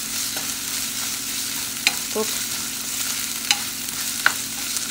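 Diced onions and ginger paste sizzling in hot oil in a nonstick frying pan while a wooden spatula stirs them. The spatula clicks sharply against the pan three times.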